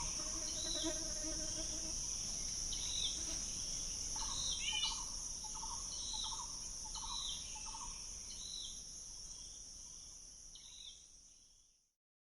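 Outdoor insect chorus droning steadily at a high pitch, with a bird repeating a short call about once a second. The whole sound fades out near the end.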